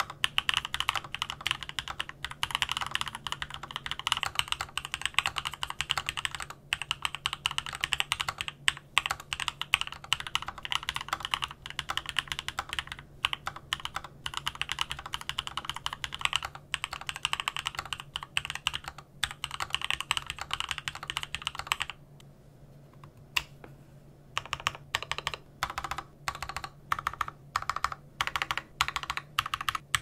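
Fast, continuous typing on a mechanical keyboard with lubed linear Vortex Frankenswitches on an aluminium top-mount plate, under PBT Cherry-profile keycaps. It stops about 22 seconds in. From about 24 seconds the typing resumes in shorter, slightly quieter runs of key presses on PBT DSA-profile keycaps.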